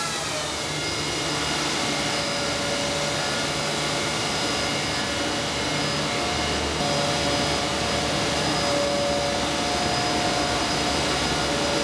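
A freshly repaired machine running smoothly: a steady rushing noise with several steady whining tones over it. The tones slide down in pitch about a second in, then hold.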